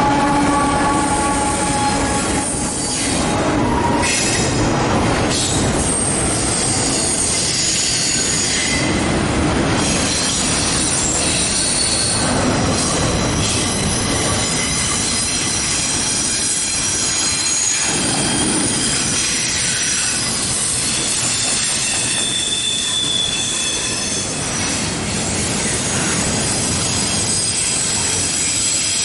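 Double-stack intermodal freight train's well cars rolling past, their wheels squealing in several high-pitched, shifting tones over the steady running noise.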